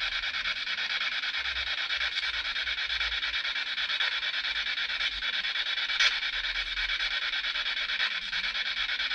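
SB7 spirit box sweeping through radio stations: steady static chopped into rapid, even pulses, with no voice coming through. A single sharp click about six seconds in.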